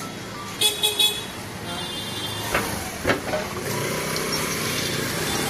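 Street traffic with a vehicle horn beeping a few quick short toots about a second in, and once more, fainter, around two seconds. Motorbike engines run underneath.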